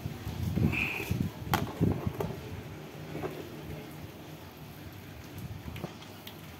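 Handling noise at the phone: low rubbing and knocks for about two seconds, with a sharp click in the middle, then quieter, with a few faint ticks.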